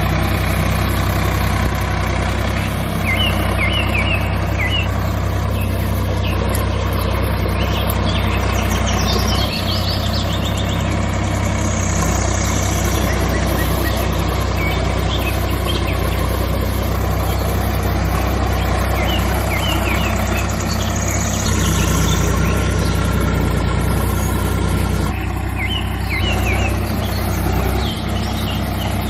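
Tractor engine running steadily, a low, even drone, with birds chirping now and then.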